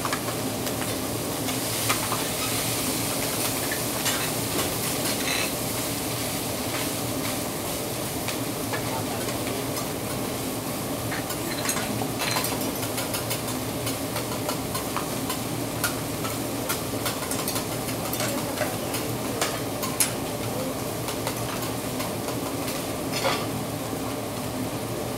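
Rice sizzling on a hot teppanyaki griddle while a metal spatula scrapes and taps the steel plate, with sharp clicks scattered throughout over a steady frying hiss.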